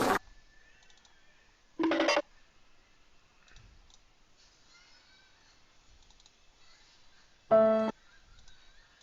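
Short sound-effect clips played back from a soundboard: a brief burst about two seconds in and a steady pitched tone near the end. Faint clicking comes between them.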